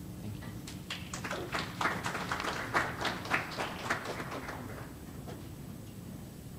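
Small audience applauding, a scatter of handclaps that dies away after about four seconds.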